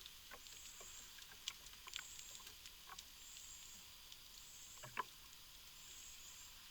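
Quiet outdoor ambience: a high-pitched insect call repeating about once a second, with scattered small clicks and rustles, the sharpest about five seconds in.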